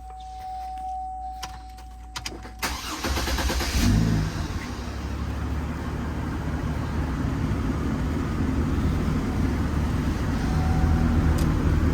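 2003 Chevy Trailblazer's engine being started: a few clicks, a brief crank about three seconds in, then the engine catches and idles steadily.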